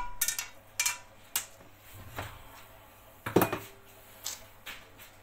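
Kitchen clatter of dishes and utensils: a scattering of separate clinks and knocks. The loudest is a cluster about three and a half seconds in, with a short ring after it.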